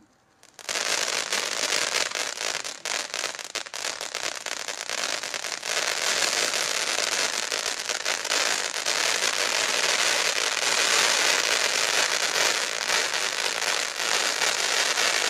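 Ground firework fountain spraying sparks, a steady hiss packed with rapid crackling. It starts suddenly about half a second in and keeps going.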